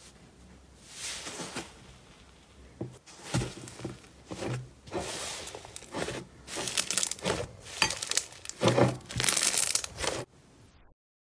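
Hands squeezing and pulling apart a large mass of thick yellow slime, giving a run of irregular sticky crackles and squelches. They come thicker and louder in the second half and cut off suddenly near the end.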